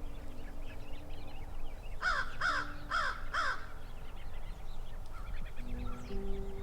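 A bird giving four quick loud calls, each rising then falling in pitch, about half a second apart, starting about two seconds in.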